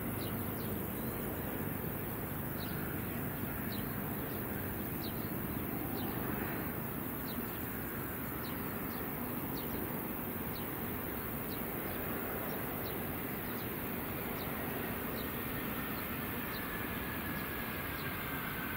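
Airbus A320 jet engines heard from a distance as the airliner touches down and rolls out on the runway: a steady rumble, with a high engine whine that starts sliding down in pitch near the end as the engines spool down. A bird chirps over it, short high notes repeating about once or twice a second.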